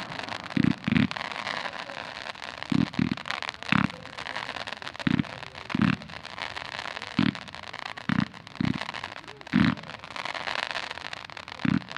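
Daylight smoke fireworks firing: dull, deep thumps of shots going off roughly once a second, some in quick pairs, over a steady hissing crackle of burning smoke devices.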